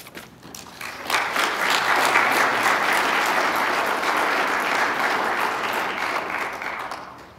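Church congregation applauding: a few scattered claps at first, swelling about a second in into steady applause that fades away near the end.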